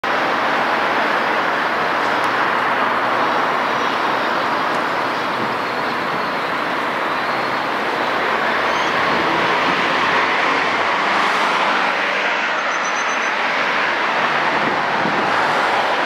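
Steady, even rushing noise without speech.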